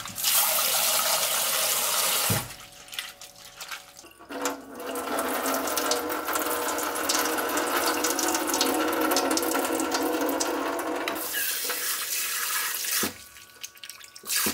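Tap water running and splashing into a stainless steel bowl of soaked seaweed in a stainless steel sink as the seaweed is rinsed by hand. The water stops twice for a few seconds of quieter wet handling, the second time near the end, and in between water runs for several seconds and pours off the tipped bowl into the sink.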